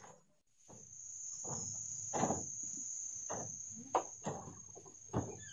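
Crickets chirring in one steady high-pitched trill, with a run of irregular thuds and knocks from footsteps on a bamboo floor.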